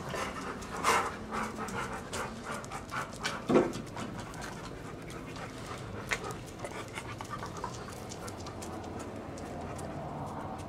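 A dog panting, with scattered clicks and knocks throughout and a louder thump about three and a half seconds in.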